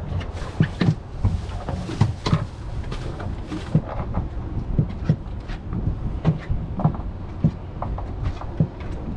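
Irregular hollow knocks and thumps on a fiberglass boat deck as a large red drum is held down, its body and tail hitting the deck. A steady low rumble runs underneath.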